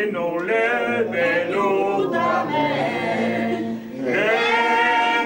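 A small group of people singing a song together without accompaniment, holding long notes; a new phrase begins about four seconds in.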